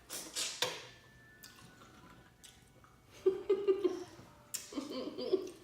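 Wet smacking and chewing of people eating, with a short burst of mouth noises near the start. In the second half come two short patches of choppy wordless vocal sound.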